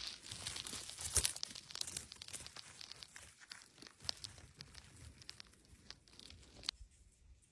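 Close, crackling rustle of dry pine needles, twigs and moss as a hand picks a mushroom from the forest floor, with one sharp click near the end before it goes much quieter.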